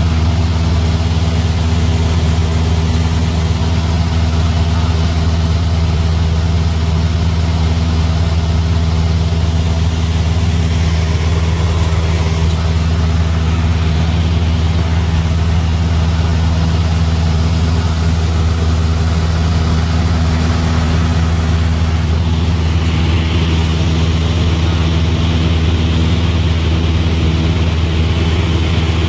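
Cessna 172's piston engine and propeller running steadily at constant power, a loud, even drone, with a rushing hiss above it that grows a little about two-thirds of the way through.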